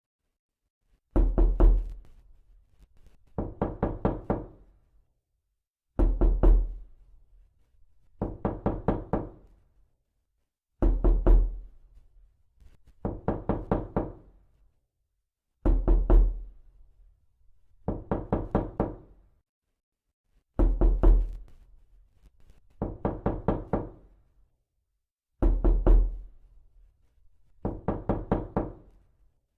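Knocking in repeated rounds: a quick run of several knocks, then a second, quieter run about two seconds later. The pair repeats about every five seconds, six times over, with silence between the runs.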